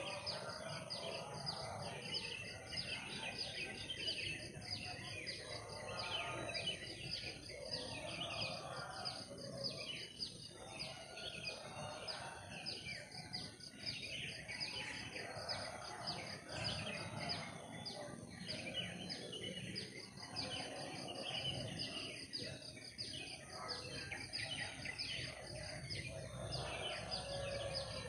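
Tropical forest wildlife chorus: many overlapping short chirping calls, with a steady high-pitched insect drone underneath.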